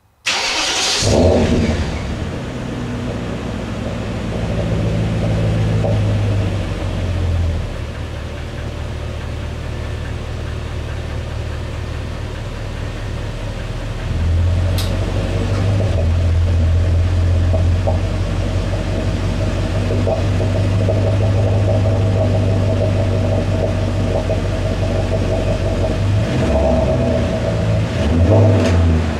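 BMW E39 540i's 4.4-litre V8 starting from cool on petrol and settling into a fast idle through its quad exhaust. About fourteen seconds in, the LPG gas solenoid clicks and the idle note turns more bubbly as the engine changes over to gas; the uploader puts the bubbling down to the secondary air pump blowing fresh air into the exhaust during cold-start running. Two brief swells in the sound come near the end.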